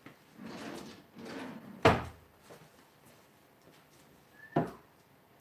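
A kitchen drawer being rummaged and slid, then shut with a bang about two seconds in, and another knock a little over four seconds in.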